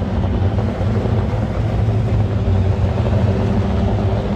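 Super GT race car engines idling together on the starting grid, a steady low drone with no revving.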